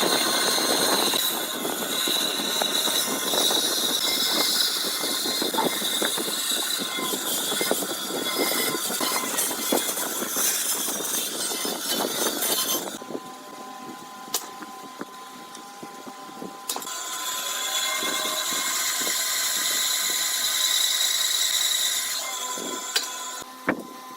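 An electric woodworking power tool running and cutting wood with a steady whine, easing off partway through so that only the motor's whine is heard, then cutting again and easing off near the end.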